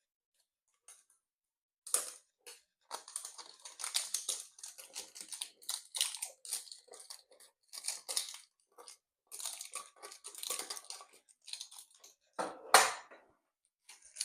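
Plastic shrink wrap crinkling and tearing as it is stripped off a small card tin, in dense irregular crackles, with one louder knock near the end.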